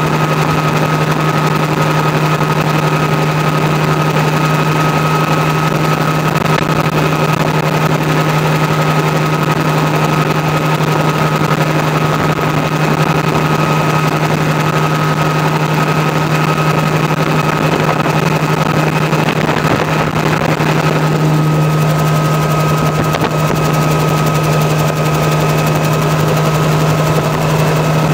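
Helicopter in flight heard from inside the cabin: the engine and rotor give a loud, steady drone with a constant high whine above it.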